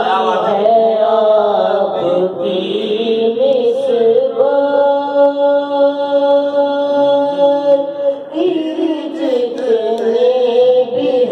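Solo male voice singing an Urdu naat into a microphone. About four seconds in he holds one long steady note for some three seconds, then the melody moves on.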